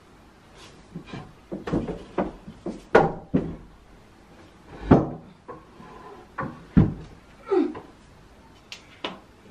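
Irregular knocks and thuds of household tidying by hand: sofa cushions being picked up and set down and light furniture being moved about, a dozen or so sharp bumps, the loudest about three, five and seven seconds in.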